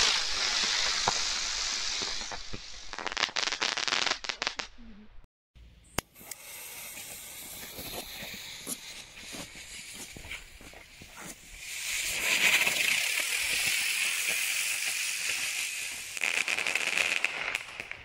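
Xplode Crackling Bird flying fireworks, several in turn: each hisses loudly as it spins up and flies, then ends in a rapid crackling finale. The sound breaks off about five seconds in and starts again with the next bird.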